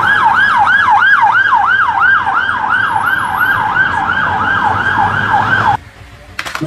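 Police van's electronic siren on a fast yelp, rising and falling about three and a half times a second, over low traffic rumble. It cuts off abruptly almost six seconds in.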